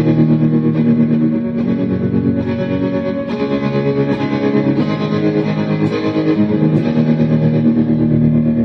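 Electric guitar played through a Donner Arena2000 multi-effects pedal on a distorted preset, strumming sustained chords that change about every second.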